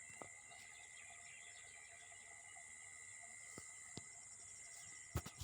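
Faint, steady chorus of insects, a constant high-pitched ringing that does not let up. A few soft clicks are scattered through it, with a sharper knock near the end.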